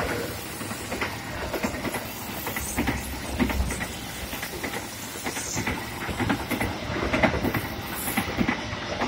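Passenger train's coaches passing close by at speed: steel wheels clattering over the rail joints in quick, irregular clicks over a steady rushing noise.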